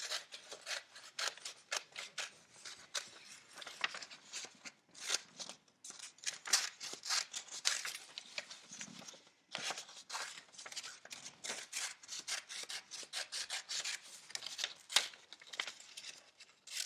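Scissors snipping through a sheet of printed paper in quick repeated cuts, with a couple of brief pauses, while the paper is turned and rustles, cutting loosely around the edge of a photograph.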